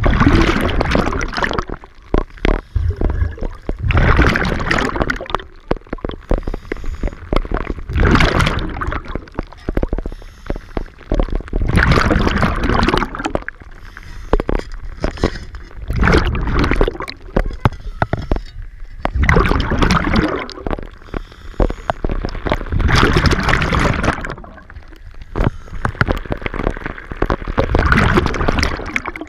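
Scuba diver breathing underwater through a regulator: a loud rush of exhaled bubbles about every four seconds, eight in all, with quieter inhalations between.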